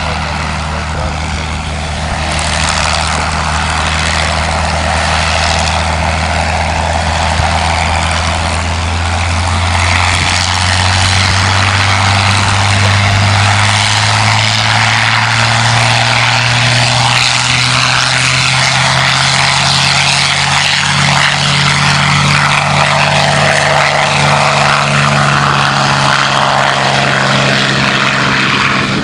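Propeller aircraft engine running on the ground: a P-51 Mustang's Merlin V12. Its pitch rises slowly and it gets louder about ten seconds in.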